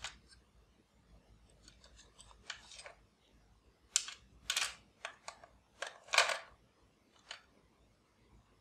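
AA batteries being handled in the open battery compartment of a plastic toy bubble gun: a series of short clicks and scrapes of battery against metal spring contacts and plastic, the loudest a little after four and six seconds in.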